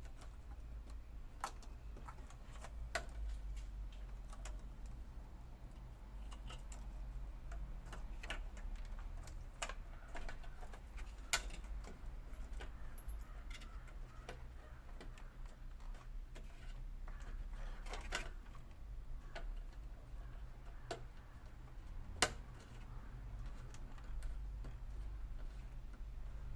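Irregular small clicks and taps of parts being handled and fitted as an LG MDD64 mini hi-fi unit is reassembled, with a few louder knocks, over a steady low hum.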